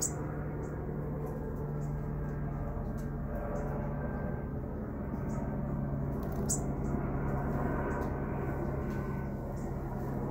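Steady low background hum with a level low tone running through it, and faint short high ticks every second or so.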